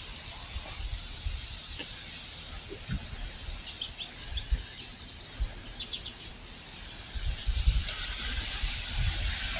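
Outdoor ambience: a steady high hiss with a few short bird chirps scattered through it, and low thumps and rumble on the microphone, more of them near the end.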